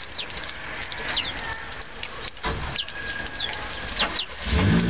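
Small songbirds at a seed feeder, house sparrows and greenfinches, giving many short, sharp chirps. A low engine hum of a motor vehicle comes up near the end.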